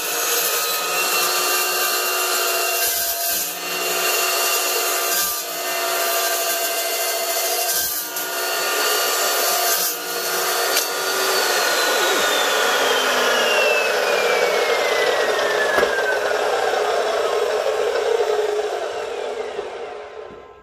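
Evolution S380CPS 15-inch chop saw's carbide-tipped, low-RPM blade cutting through metal stock. About eleven seconds in, the motor's whine starts falling steadily in pitch as the saw spins down, and the sound fades out near the end.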